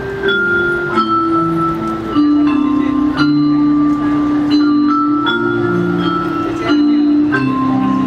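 School percussion band playing a slow piece on mallet percussion: held low chords under a high, bell-like melody, with a new note about once a second.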